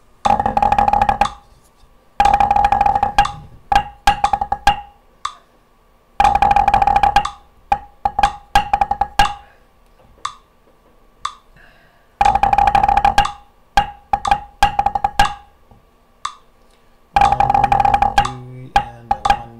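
Drumsticks played on a rubber practice pad: a pipe band drum phrase at a slow 60 BPM, repeated several times. Each pass opens with a dense run of rapid strokes and rolls, then thins to a few single taps before a short gap.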